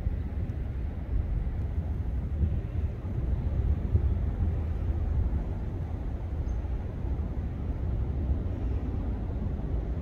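Steady low rumble of outdoor background noise, with no distinct events.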